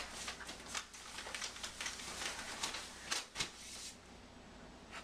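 Clothing rustling and scuffing as trousers are dragged off a person lying on the floor, in quick irregular scrapes that stop about four seconds in, leaving a faint steady hiss.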